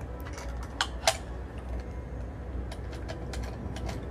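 Wall-mounted key lockbox being handled: a series of small mechanical clicks and rattles, with two sharper, louder clicks about a second in.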